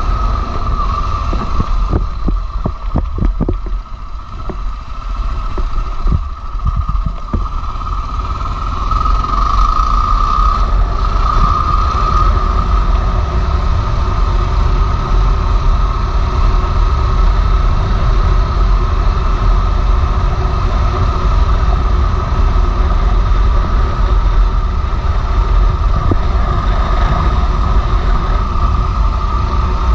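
Motorcycle riding on a gravel road: its engine runs under heavy wind rumble on the microphone, with a steady high whine. A run of knocks and a dip in level come a few seconds in, and from about eight seconds on it runs steady and louder.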